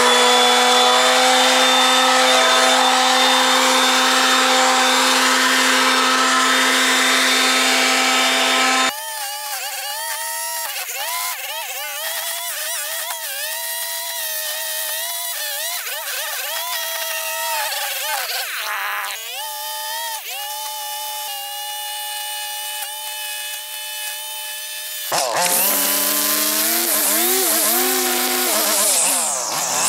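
A string trimmer at work cutting grass along concrete edges. For about the first nine seconds a power tool runs at a steady pitch with a strong rushing hiss, then the sound changes abruptly to the trimmer's engine revving up and down as the line cuts, growing louder again near the end.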